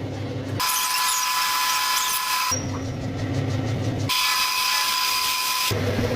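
Power tools running in short spliced clips, switching every second or two between a high whine over a hiss and a lower hum.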